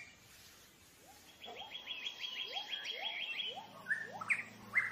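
Tropical forest birds calling: a fast trill of about a dozen repeated high notes alongside a string of short rising whistled notes, followed by a few sharper chirps near the end.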